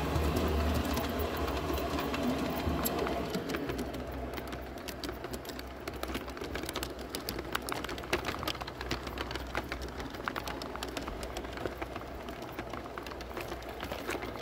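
G-scale model train running along outdoor track, a steady low motor hum with many irregular clicks from the wheels on the rails. It is louder for the first three seconds, while it passes through a tunnel.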